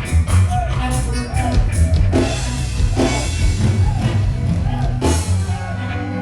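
Live reggae band playing at full volume: drum kit over a deep, steady bass line, with cymbal crashes about two and five seconds in.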